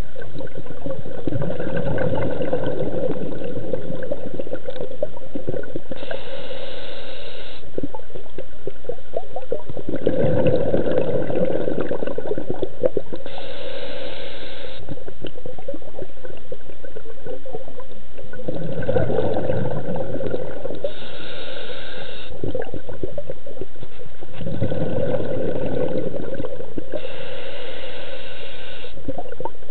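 Scuba diver breathing through a regulator underwater: a hissing inhale of about a second and a half, then a longer bubbling exhale, repeating about every seven seconds, four breaths in all.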